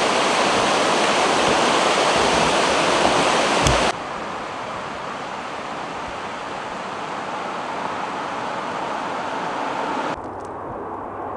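Whitewater river rapids rushing steadily and loudly, with a brief low thump just before the sound cuts off about four seconds in. A softer, steady rushing follows.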